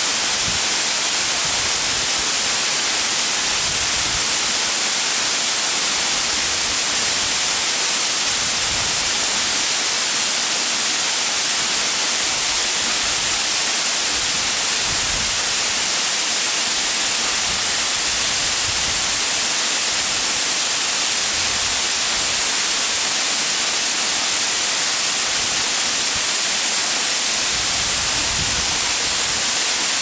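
Waterfall cascading down a rock face into a shallow pool: a steady, loud, hissing rush of falling water.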